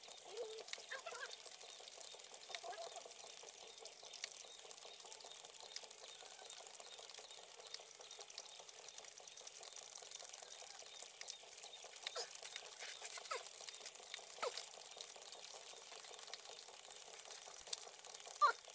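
Quiet open-air ambience: a faint hiss with scattered light ticks and rustles, and a few short bird calls near the start. A closer rustle comes right at the end.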